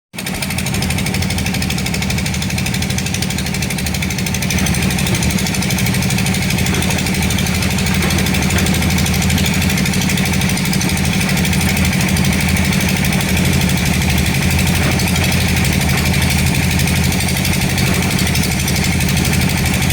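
Construction breaker hammer (jackhammer or excavator-mounted hydraulic breaker) hammering without a break, a rapid, even rattle of blows over a steady low drone.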